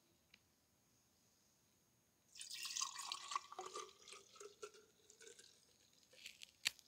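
Milk poured from a paper carton into a glass pitcher: a splashing pour begins about two seconds in and tapers off, with one sharp click near the end.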